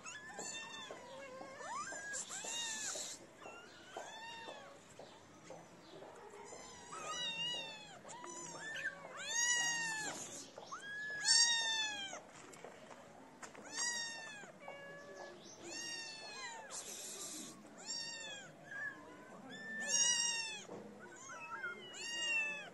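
Several kittens and young street cats meowing over one another, repeated high calls that rise and fall in pitch, one after another about every second: hungry kittens begging for food.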